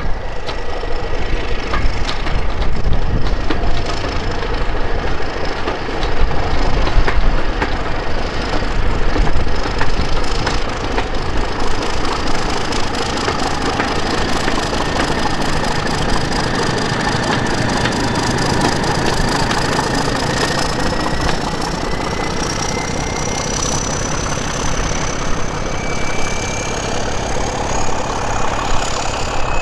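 Class 31 diesel locomotive D5627 (31203) working a loaded coaching-stock train, its English Electric 12SVT engine running under a steady rumble, with many clicks from wheels over the rail joints in the first half. From about two-thirds of the way in, a whine rises slowly in pitch.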